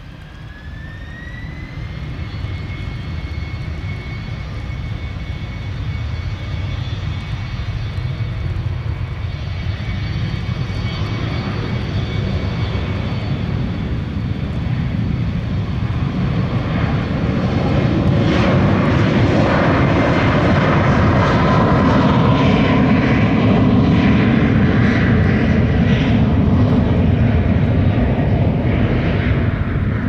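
Embraer ERJ-195LR's twin turbofan engines spooling up for takeoff: a whine rises in pitch over the first two seconds and then holds steady, under a jet roar that keeps building, loudest and crackling from about eighteen seconds in.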